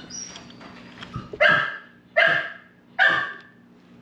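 A dog barking three times in a row, about one bark a second, starting about a second and a half in.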